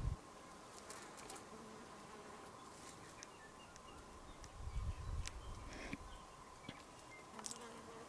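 Faint, steady insect buzzing, with brief low rumbles right at the start and about five seconds in, and scattered faint ticks.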